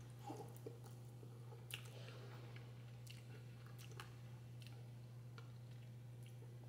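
Faint sounds of a person chewing a mouthful of instant noodles, with scattered short wet mouth clicks over a steady low hum.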